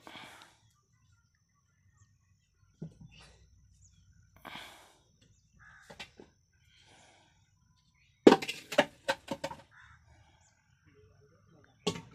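Metal mud bowl knocking and clattering several times in quick succession about eight seconds in, with another sharp knock near the end, as loads of mud are handed up onto a roof; softer scrapes and rustles come before.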